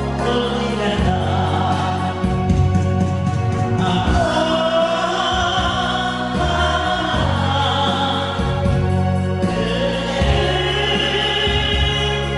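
A Korean popular song with a group of voices singing together over a backing accompaniment with a steady beat.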